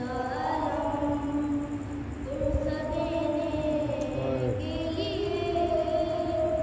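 A boy chanting a noha, a Shia mourning lament, solo and unaccompanied, in long held notes that waver and glide in pitch.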